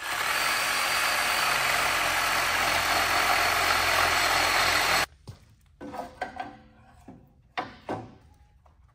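Cordless reciprocating saw running and cutting through a wooden board, a steady loud buzz that cuts off suddenly about five seconds in. After it, scattered knocks as the cut wooden block is fitted against the truck batteries in the battery box.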